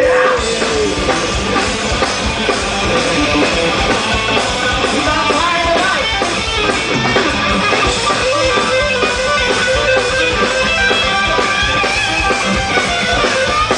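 Live rock band playing an instrumental passage: electric guitars and a drum kit, with no singing.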